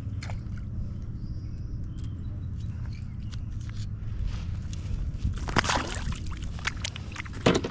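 A smallmouth bass being released from the kayak splashes into the river about five and a half seconds in, over a steady low rumble. A sharp knock follows near the end.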